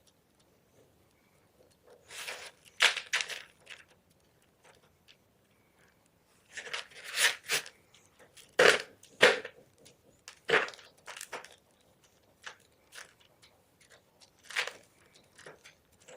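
Gym chalk crunching and crumbling in irregular clusters of sharp crackles, with short quiet gaps between them. The loudest crunches come in the middle.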